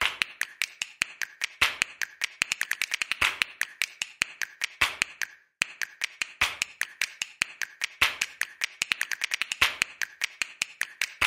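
Rapid, irregular sharp clicks, a typing-style sound effect, several a second, with a short break about halfway through.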